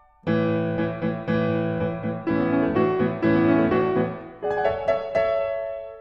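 Piano music, with notes and chords struck about twice a second and left to ring and fade.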